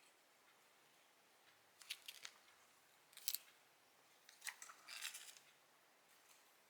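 Scissors snipping paper in three short bursts of crisp cuts, the last one longer than the others.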